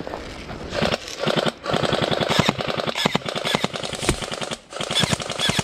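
Airsoft rifle firing on full auto in three rapid bursts, the middle one lasting nearly three seconds.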